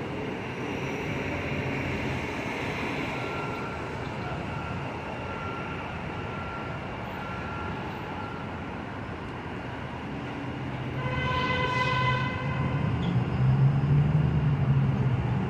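New York City subway train on an elevated line, its running noise steady, then a short horn blast about two-thirds of the way through, followed by the train's rumble growing louder near the end.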